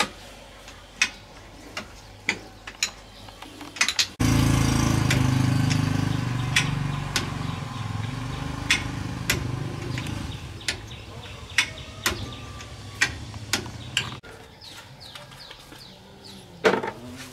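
Metal clinks and taps of hand tools and parts on a car's rear wheel hub and drum brake. From about four seconds in to about fourteen seconds, a loud, steady engine hum cuts in and then cuts off abruptly.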